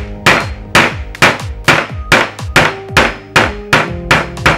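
A hammer striking a wooden dowel, steady blows about two a second, driving the old innards out through the bottom of a can-type electrolytic capacitor so that it can be restuffed.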